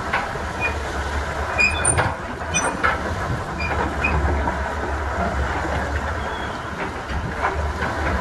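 Caterpillar excavator's diesel engine idling with a steady low rumble, mixed with small waves washing onto the shore. A few short high squeaks and clicks come about two to three seconds in.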